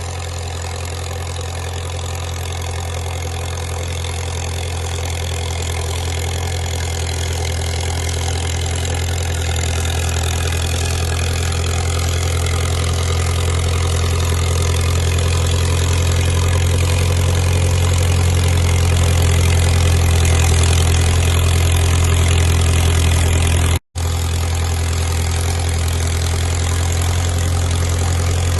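Caterpillar crawler dozer's diesel engine running steadily with a strong low drone, growing slowly louder. The sound cuts out for an instant about 24 seconds in.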